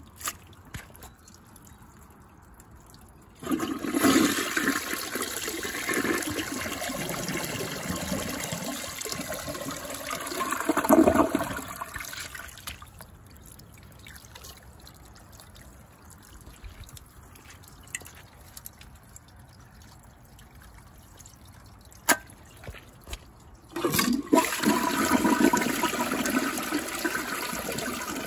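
A toilet flushing twice. The first flush runs for about nine seconds with rushing water and a loud gulp near its end. A couple of sharp clicks come just before the second flush starts near the end.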